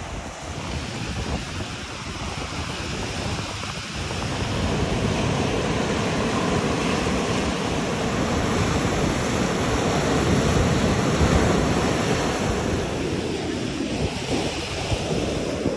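Waves breaking and washing over a rocky shoreline, with wind buffeting the microphone; the surf grows louder about four seconds in.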